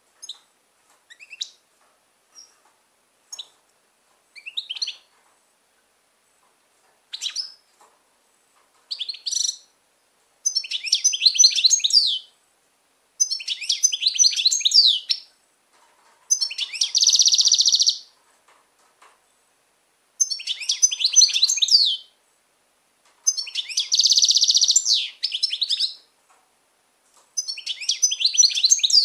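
European goldfinch singing: a few short, scattered high notes at first, then from about ten seconds in a run of song phrases, each a second or two long, some of them holding an even trill.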